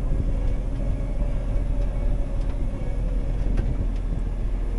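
Combine harvester running steadily in the field: a constant low mechanical drone with a faint steady hum over it.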